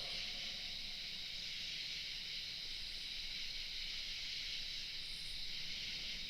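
Steady high-pitched hiss that stays even, with no distinct events.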